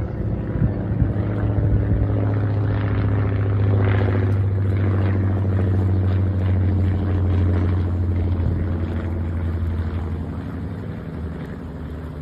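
Waco UPF-7 biplane's seven-cylinder radial engine and propeller droning steadily as the plane passes low overhead. The sound is loudest a few seconds in and slowly fades toward the end as the plane moves away.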